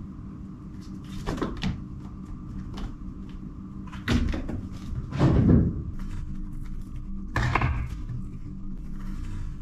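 A cat pouncing and scrambling on a wooden floor: a few thumps and scuffles, the loudest around four to six seconds in, with another about seven and a half seconds in.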